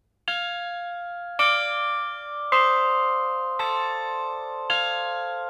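Cast hard-bronze orchestral bells from the Royal Eijsbouts foundry, struck one after another. There are five strikes at different pitches, about a second apart, and each is left ringing so the tones overlap.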